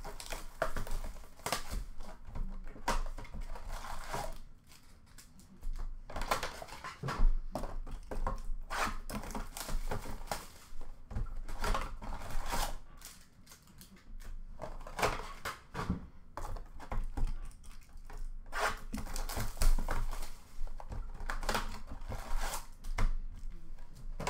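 Cardboard hockey-card blaster boxes being opened by hand and the card packs pulled out and set down: a busy run of irregular clicks, rustles and taps, with two short lulls.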